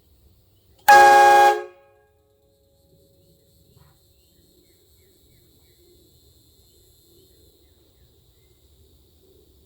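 A VEVOR train-horn kit's air horns give one short blast about a second in, lasting under a second, with several tones sounding together as a chord. The blast cuts off sharply and a single low tone trails off briefly.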